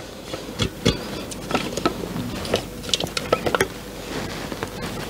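A spatula scraping thick pudding out of a stainless-steel Thermomix mixing bowl: irregular scrapes and small knocks, a few of them sharper than the rest.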